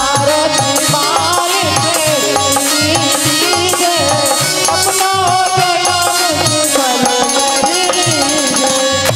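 Indian devotional folk music in an instrumental passage between sung lines: a melody wavers and ornaments over a hand-drum beat, with jingling hand percussion keeping a steady pulse.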